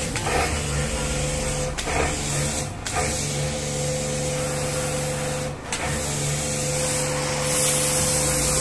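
Pressure washer running steadily with the hiss of its spray on a car's bodywork, washing and foaming the car. The motor tone breaks off briefly about halfway, and the spray hiss grows louder near the end.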